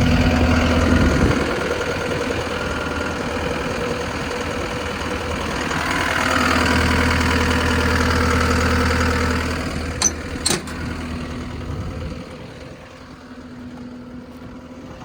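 John Deere 331G compact track loader's 88.5 hp Tier 4 diesel engine running, pulling harder for a few seconds in the middle, then settling to a quieter idle after about twelve seconds. Two sharp clanks come about ten seconds in.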